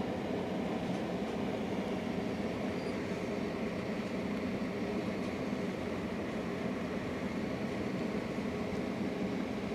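A steady, unbroken low rumble of running machinery.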